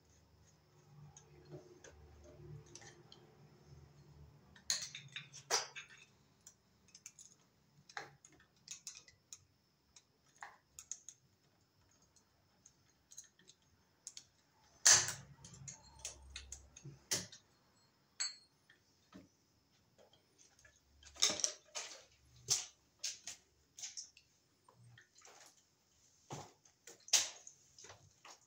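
Irregular small clicks and taps of a screwdriver and wire strippers on the screw terminals of a porcelain lamp holder as the wire loops are opened and the bare copper is pulled back. The sharpest click comes about halfway through, and the taps bunch up again in the last few seconds.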